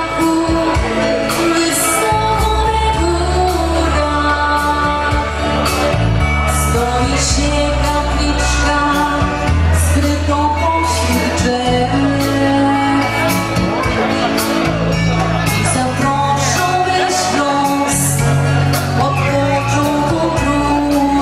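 Pop song with singing over a steady drum beat, bass and melodic backing.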